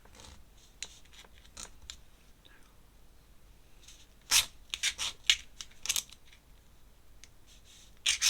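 Drawing tools scratching and rubbing on sketchbook paper in short, quiet strokes, with a quicker run of sharper scratches about halfway through and again near the end.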